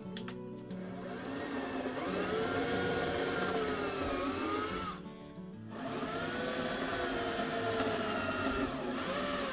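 Small electric drill running twice, each run a few seconds long, boring lampposts' mounting holes into the layout's upper deck. Its motor whine rises and sags in pitch as the bit bites. Background music plays throughout.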